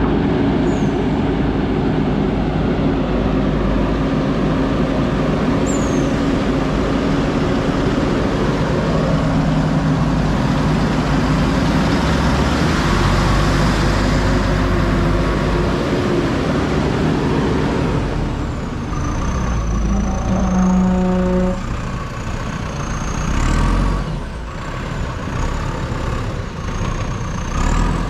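JCB backhoe loader's diesel engine running and working under varying load, its level swelling and easing. About twenty seconds in there is a brief pitched tone, and a thin wavering high whine runs through the last third.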